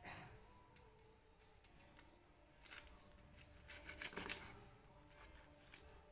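Kitchen knife slicing through crispy deep-fried meat on a wooden cutting board: faint crunching crackles of the crust giving way, in short runs, loudest about four seconds in.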